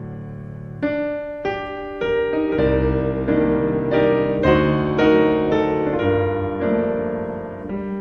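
Background music: a slow piano piece, single notes and chords struck about once a second over sustained tones.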